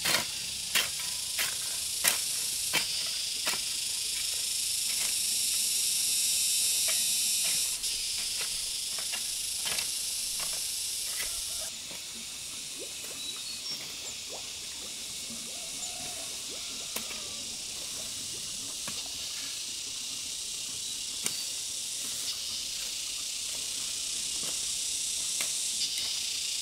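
A hoe chopping into weedy soil in a steady rhythm, about one stroke every 0.7 seconds, thinning to occasional strokes after about twelve seconds. Underneath is a steady high-pitched drone of insects.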